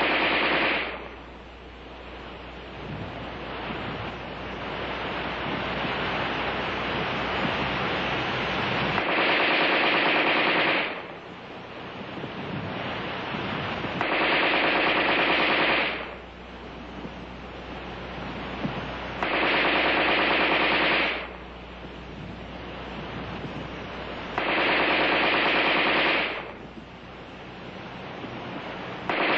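ArmaLite AR-10 rifle firing 7.62 mm NATO rounds on full automatic. Four bursts of about two seconds each come roughly five seconds apart, each one emptying a preloaded magazine; the tail of a burst is heard at the start and another begins at the very end. The short pauses between bursts are the magazine changes.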